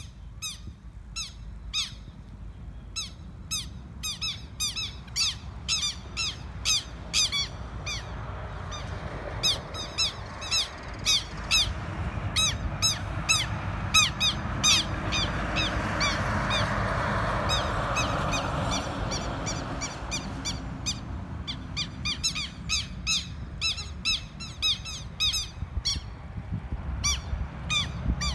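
Southern lapwing giving repeated harsh, strident alarm calls, about two a second and coming faster near the end, as it defends its ground against a red-legged seriema. A rushing noise swells and fades in the middle.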